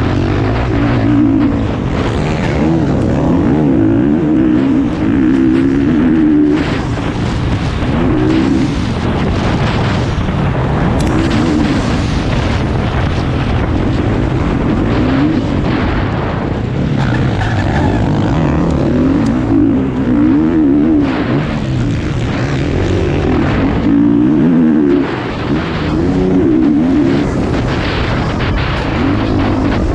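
Motocross bike engine heard from on the bike while racing, its revs rising and falling again and again as the rider accelerates and shifts round the dirt track, easing off briefly near the end.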